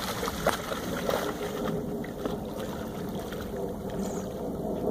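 Water sloshing and splashing as two Norwegian Elkhounds wade and paddle through a pond, with a sharper splash about half a second in, over a steady low rumble.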